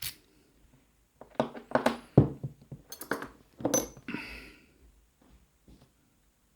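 Small steel padlock parts clicking and clinking against each other and a hard surface while the lock is taken apart, in two quick clusters, with a brief metallic ring about four seconds in.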